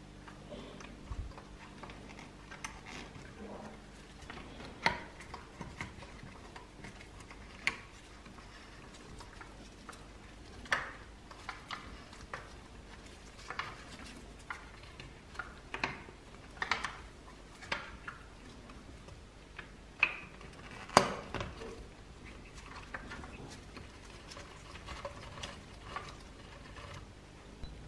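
Irregular clicks, taps and knocks as a Tonka T6 toy bulldozer's rubber tracks are worked over its wheels and its pressed-steel track frames are handled, with the loudest knock about three-quarters of the way through.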